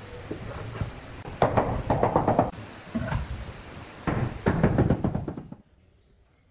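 Granite stair slab being pushed and pressed by hand into its mortar bed, making two spells of rough knocking and scraping of stone on grit. The sound cuts off suddenly shortly before the end.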